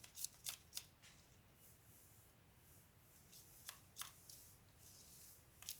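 Near silence broken by a few faint, sharp clicks and rustles of small objects being handled: several in the first second, two more about four seconds in and one near the end.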